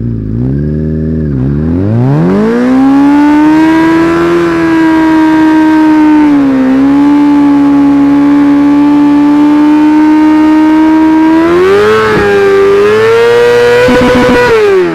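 Yamaha YZF-R6's inline-four engine through a LeoVince SBK exhaust, blipped twice at low revs, then climbing to a high, steady scream held during a burnout. Near the end the revs climb higher still and stutter briefly, as at the ignition cut, before dropping away.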